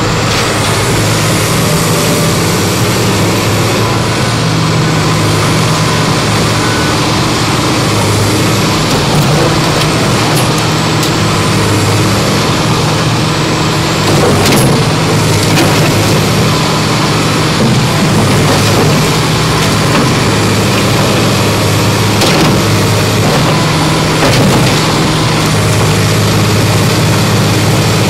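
Tracked hydraulic excavator's diesel engine running steadily, its pitch stepping up and down as the boom lifts and swings the bucket, with a few faint knocks.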